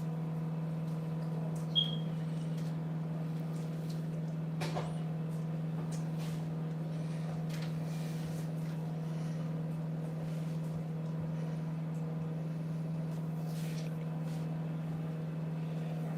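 A smoke detector gives a single short, high-pitched chirp about two seconds in, the low-battery warning. It sounds over a steady low hum, with a light knock around five seconds in.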